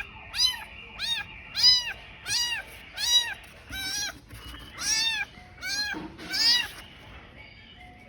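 Tiny kitten meowing repeatedly, about nine high-pitched cries in a row, each rising then falling in pitch, the distress calls of a kitten separated from its mother.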